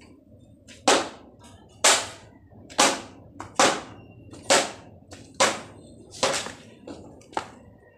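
Hand hammer blows, about eight strikes at roughly one a second, each sharp with a brief ringing tail.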